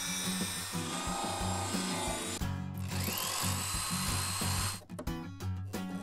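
Background music with a power drill and grinding wheel working the broken fiberglass at the edge of a hole in the hull. The drill's whine rises to a steady pitch about three seconds in, and sharp clicks follow near the end.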